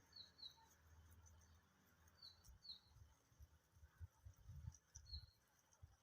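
Faint short bird chirps, mostly in quick pairs, heard three times, over soft low bumps and rustling.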